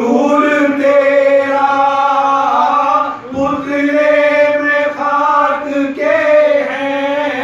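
Men's voices in unison, with no instruments, chanting a devotional Urdu poem in a melodic recitation. They hold long, drawn-out notes in three sustained phrases with brief breaths between them.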